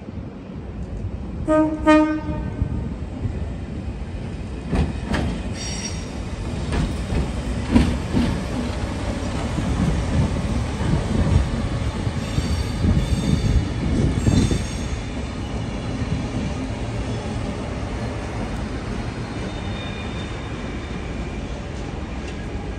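Vintage red Sydney electric train passing close by. A short horn blast sounds about two seconds in, followed by the steady rumble of the carriages, wheels clicking over rail joints and brief high wheel squeals.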